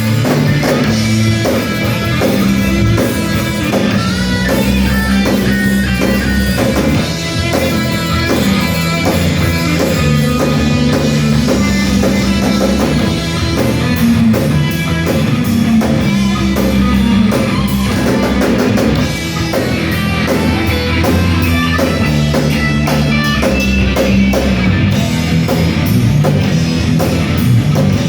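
Heavy metal band playing live: distorted electric guitars with bass and a drum kit, an instrumental passage with no vocals.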